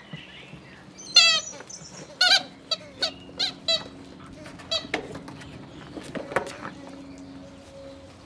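Dobermann puppies playing over a rubber ball toy: a string of short, high-pitched squeaks with a wavering pitch, the loudest about a second in and at about two seconds, then quicker ones around three seconds and a few more further on.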